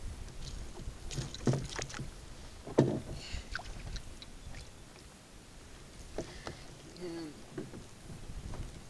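Scattered knocks and clatters of a channel catfish being unhooked while held in a lip grip against the side of a kayak. The loudest knock comes just under three seconds in.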